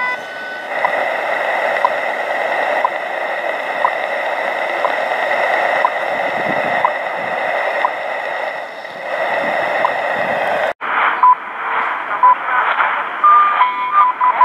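Shortwave time-signal broadcast on 15.000 MHz (WWVH and BPM) played through a portable receiver's speaker: a steady hiss of static with a faint whistle and a short tick about once a second. About 11 s in the sound cuts out and changes to a different radio, narrower in tone, with longer and clearer time beeps through the noise.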